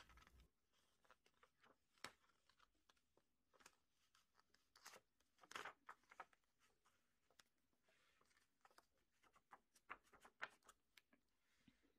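Near silence with faint, irregular taps and crinkles: a clear plastic stencil sheet being handled on a fabric pot holder and a stencil brush dabbing paint through it, a little louder about five seconds in and again near ten seconds.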